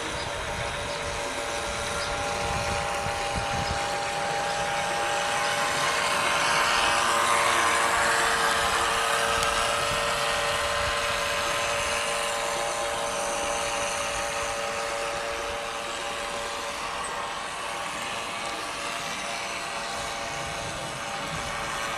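Electric motor and propeller of a wooden scale RC model boat running at speed: a steady whine over the hiss of its wake, swelling to its loudest about seven or eight seconds in and easing off after.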